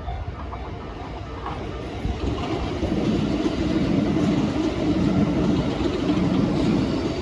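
A train passing over a level crossing: its running noise grows louder about two seconds in and then stays loud. The crossing's warning bell fades out at the start.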